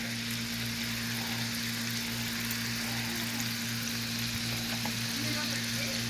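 Chicken pan drippings sizzling steadily as lemon juice deglazes the hot pan, with a steady low hum underneath.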